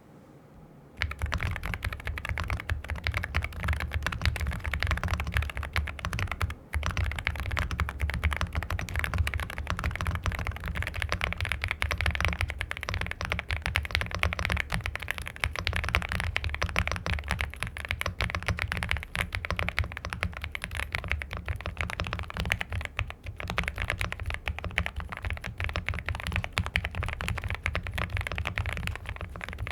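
Continuous fast typing on an Aula F75 mechanical keyboard with linear switches, a dense run of key clacks starting about a second in, with two brief breaks.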